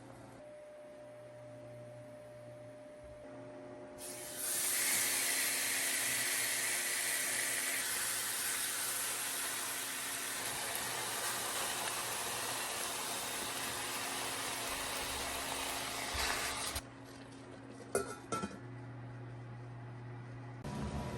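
A steady hiss starts about four seconds in and cuts off suddenly about twelve seconds later, followed by a couple of sharp clinks of kitchenware.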